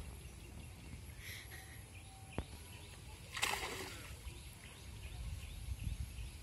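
A short splash of water about three and a half seconds in, where a cast net has just sunk into the pond. A sharp click comes shortly before it, and a low steady rumble runs underneath.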